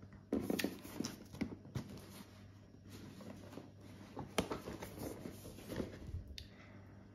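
Cardboard product box being handled and turned over in the hands: scattered light taps, knocks and rubbing of the cardboard at uneven intervals.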